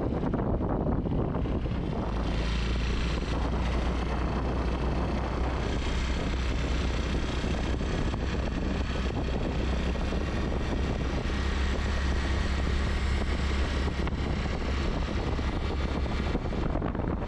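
Wind rushing over the microphone of a camera carried low on a moving motor scooter, with the steady run of the scooter's engine and tyres on the road underneath. The hiss gets brighter about two seconds in.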